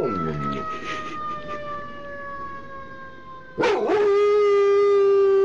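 A dog howling along with a fire truck siren. A long howl trails off and drops in pitch at the start. A quieter siren wail then slowly falls in pitch, and about two-thirds in the dog starts another long, loud, steady howl.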